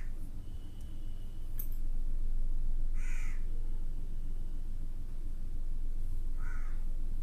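A crow cawing three times in short calls, about three seconds apart, over a steady low hum.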